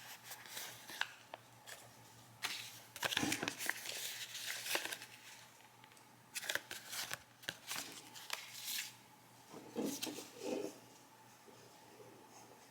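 Hands opening and handling product packaging: irregular crinkling, rustling and tearing with scattered sharp clicks and taps, busiest a few seconds in.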